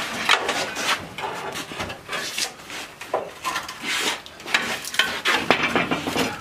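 Irregular scraping and knocking of a steel bar prying against a rusty pickup frame bracket, metal grating on metal in uneven strokes.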